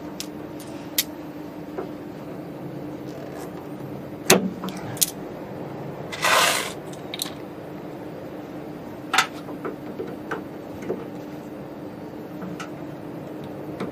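Plastic pneumatic air tubing being handled and fitted into push-in connectors on the cabinet's valves: scattered sharp clicks and knocks, and a brief scraping rustle about six seconds in as the tube is pulled along, over a steady low hum.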